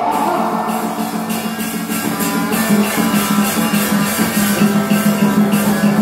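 Instrumental accompaniment from a traditional Vietnamese tuồng opera ensemble: plucked strings over a steady low note, with a quick even beat of percussion strikes about three a second.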